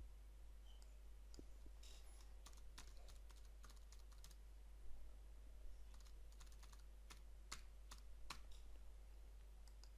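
Faint typing on a computer keyboard: scattered, irregular keystrokes as a username and password are entered.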